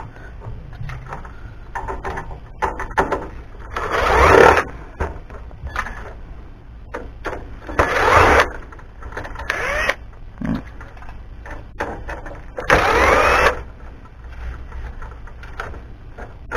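Cordless power driver run in four short bursts, its motor whining up as it backs screws out of a sound-system casing, with light clinks and handling between.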